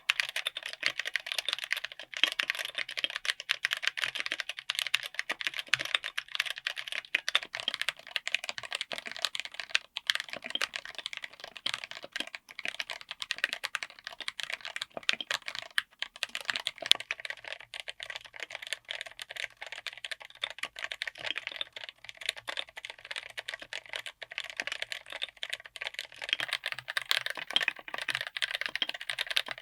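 Continuous fast typing on a mechanical keyboard fitted with tactile switches: a dense stream of key clacks, with keys bottoming out and springing back.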